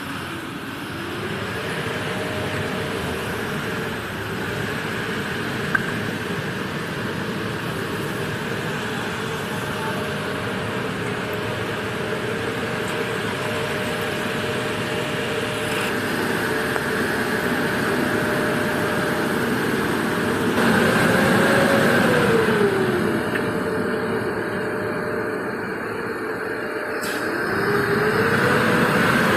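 Eicher Skyline Pro CNG bus chassis's turbocharged engine running steadily, its pitch rising and falling about two-thirds of the way through and rising again near the end. A single sharp click comes about six seconds in.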